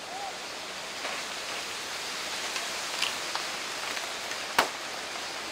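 Steady, even hiss of rainforest background noise, with a brief faint call right at the start and one sharp knock about four and a half seconds in.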